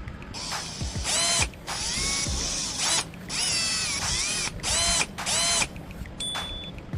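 A small whirring mechanism, like a power tool's motor, running in four bursts with gaps between them, its pitch swooping up and down within each burst.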